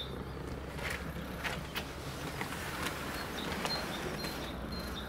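Outdoor background: a steady low rumble like distant traffic, with a few short clicks and rustles close by. Faint, evenly spaced high insect chirps come in near the end.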